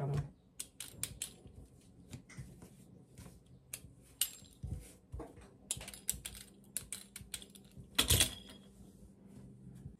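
Scattered light clicks and taps of a pizza-cutter wheel cutting dough on a silicone mat and of dough pieces being lifted and set down, with one louder knock about eight seconds in.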